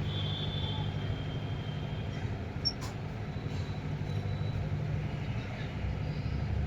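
Steady low rumble of street traffic and engines, with a thin high whine for the first two seconds and a single sharp click a little under three seconds in.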